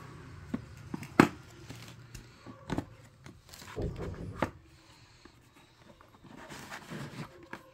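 Scattered knocks and clicks of handling a razor gift box: a plastic cartridge pack and razor being set down and moved on the cardboard box and its insert tray. A sharp knock about a second in is the loudest, with several lighter knocks after it and soft rustling near the end.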